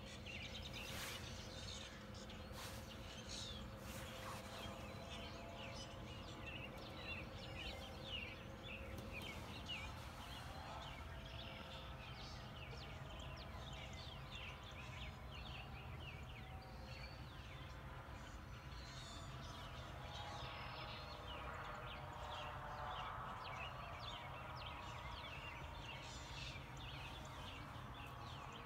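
A faint early-spring mix of wild birds singing and calling, many quick chirps overlapping, with a lower, drawn-out call about three-quarters of the way through. A steady low rumble runs underneath.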